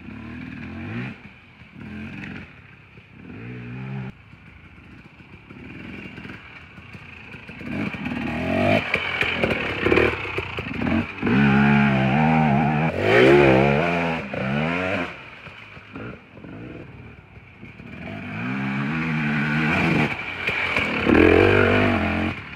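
Dirt bike engine revving up and easing off again and again as the bike rides past, fainter early on and loudest in the middle and again near the end.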